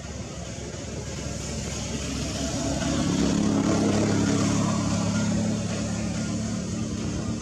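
A motor vehicle's engine droning, growing louder about two seconds in and easing off again near the end, as of a vehicle passing.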